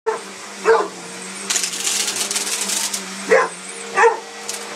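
Upright vacuum cleaner running with a steady hum, with a louder hiss for about a second and a half in the middle. A mastiff barks at it three times, once near the start and twice near the end: the dog is scared of the running vacuum.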